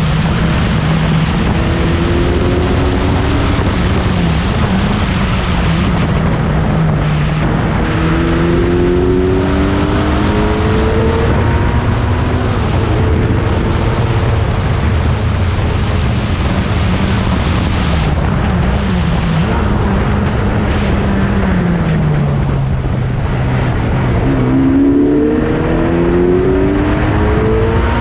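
1960s prototype racing cars running at speed, their engines climbing in pitch through the gears again and again, with several engines overlapping near the end over a loud, steady rush of noise.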